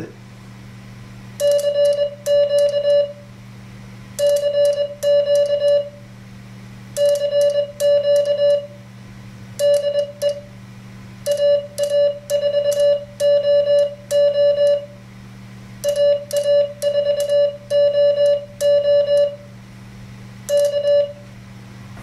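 Morse code keyed by hand on a paddle through an MFJ-493 memory keyer. A single steady-pitch sidetone beeps out 'CQ CQ CQ DE AA4OO AA4OO K' in seven groups, with a sharp click at each dot and dash and a low steady hum underneath.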